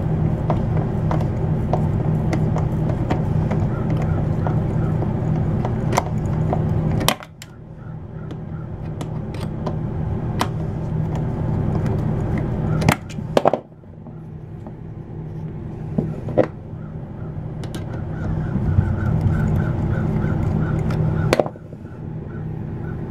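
Powered screwdriver motor running as it backs a Phillips screw out, cutting off abruptly with a click about seven, thirteen and twenty-one seconds in and building back up each time, with scattered sharp clicks.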